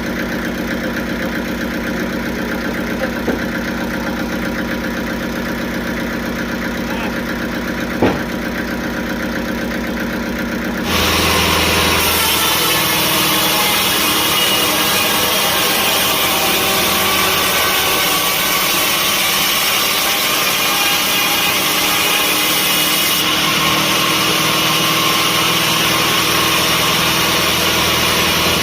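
Sawmill machinery running: a steady engine-like hum with two short knocks. About eleven seconds in it gives way abruptly to a louder, hissier machine sound with a steady high whine.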